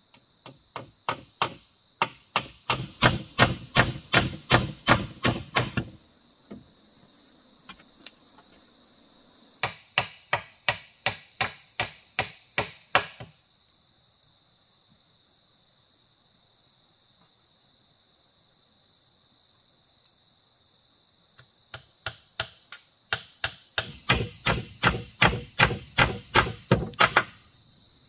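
Three runs of rapid blows from a hand tool on wood, about three to four strikes a second, separated by pauses. A steady high insect drone runs underneath.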